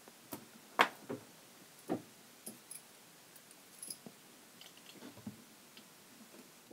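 Scattered light clicks and taps of small metal parts being handled: a tiny screw picked up and fitted into a microphone's metal housing. The loudest clicks come about one and two seconds in.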